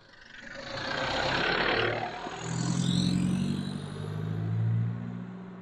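Isuzu D-Max 2.5-litre turbo-diesel double-cab pickup driving past over a loose gravel track. The tyres crunch on stones, growing louder as it approaches. From about two seconds in, the diesel engine's low drone carries as it pulls away, fading near the end.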